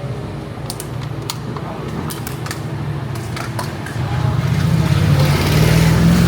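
A motor vehicle's engine running close by on a city street, growing louder near the end as it passes with rising tyre hiss. A few sharp clicks come in the first half.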